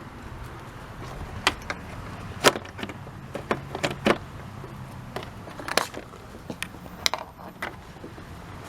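Scattered sharp clicks and knocks of a hand tool and parts being handled in a car's engine bay as a bolt is tightened during reassembly, over a faint steady low hum.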